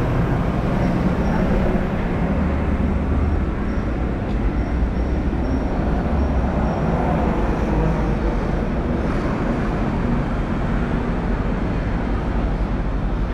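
Steady rumble of city street traffic, loud and continuous with no distinct single events.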